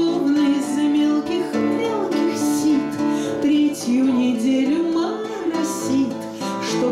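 A woman singing a song in waltz time to her own strummed acoustic guitar.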